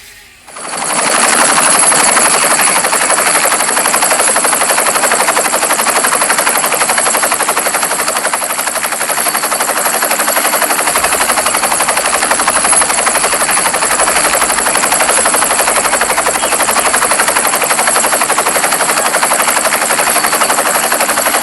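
Small toy or RC helicopter's rotor and electric motor running steadily, a fast, even buzzing chop. It starts abruptly about half a second in and runs at a constant level.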